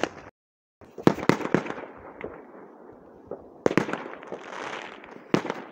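New Year fireworks going off: a bang at the start, a quick run of bangs about a second in, a crackling burst near the middle and another bang near the end.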